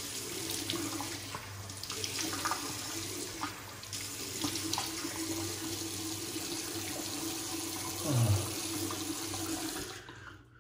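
Bathroom sink faucet running while hands splash water onto the face. The running water stops shortly before the end.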